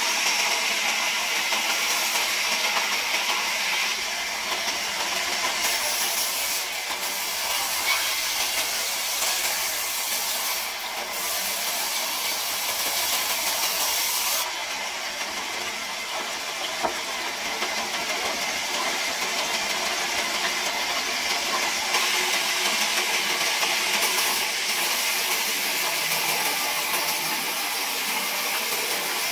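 Large sawmill band saw running and cutting lengthwise through an okan log slab: a steady, loud noise of the blade through the timber, its tone shifting a few times as the feed goes on.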